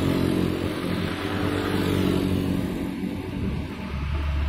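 Road traffic going by: motorcycle engines passing, then about four seconds in the deep rumble of an approaching tanker truck's diesel engine grows louder.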